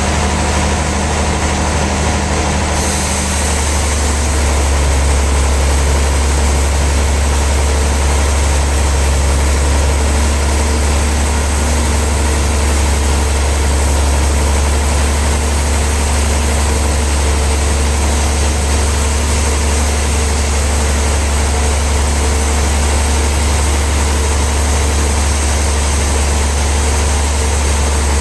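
Sawmill machinery running with a steady, heavy low hum under a constant noisy haze; it grows a little louder about three seconds in.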